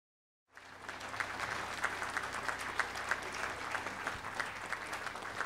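Audience applauding, a dense run of hand claps starting about half a second in, with a low steady hum underneath.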